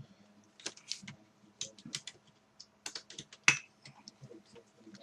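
Small plastic and metal laptop parts being handled: scattered light clicks and taps as the system board is lifted out of the case, with one sharper knock about three and a half seconds in.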